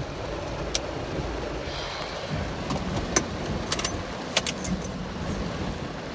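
Keys jingling in a hand, with several sharp metallic clinks, a cluster of them in the middle, over a steady low rumble.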